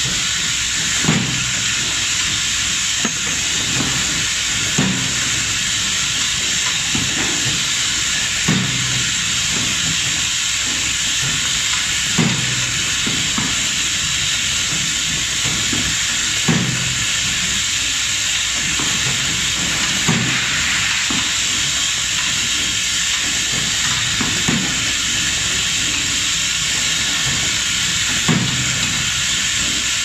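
Automatic ball valve assembly machine running: a steady hiss with a short low thump about every four seconds as the machine cycles.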